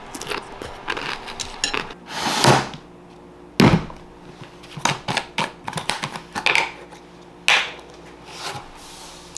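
Dishes and utensils being handled: scattered clicks and knocks, a short rustle about two seconds in, and a sharp knock just before four seconds.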